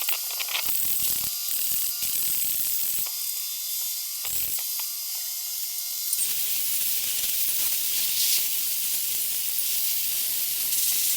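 Electric arc welding on stainless steel: a steady, fast crackle of the arc that runs without a break, with the noise spreading lower about six seconds in.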